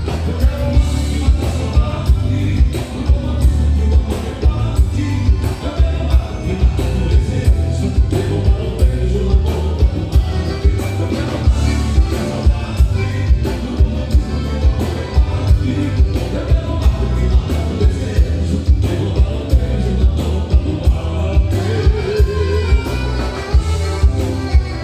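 Live gaúcho band playing a milonga, with a steady low beat about twice a second.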